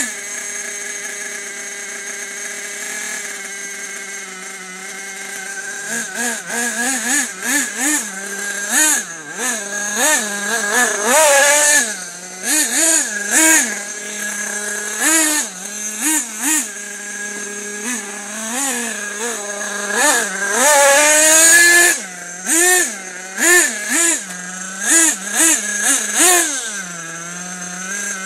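Small nitro-fuelled engine of an RC buggy running at a steady idle for about five seconds, then revving up and down over and over in quick blips as the buggy is driven.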